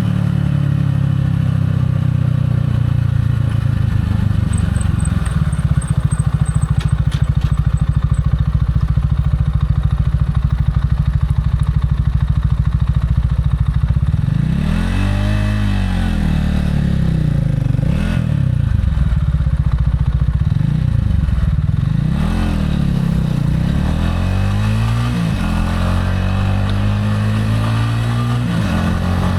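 Gilera AC4 motorcycle engine running under way, steady at first. From about halfway through, its pitch rises and falls several times as the throttle is opened and closed.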